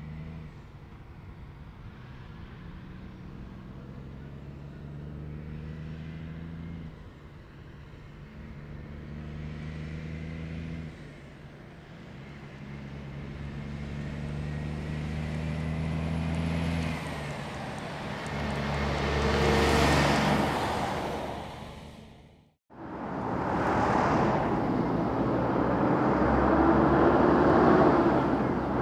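Heavy diesel truck approaching on the highway: a steady engine note that breaks off and resumes twice, growing louder to a loud pass-by with tyre noise about twenty seconds in. After a sudden cutoff, a second heavy truck approaches, its engine and tyre noise growing louder.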